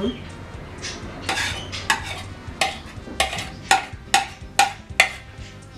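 A spoon scraping and clinking against a pot of spaghetti in cream sauce, about two strokes a second with a brief ring after each, as diced ham is worked into the pot.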